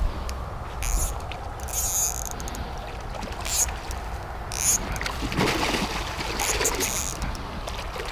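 Water sloshing and splashing around a swimming spearfisher, over a steady low rumble, with several short hissing bursts.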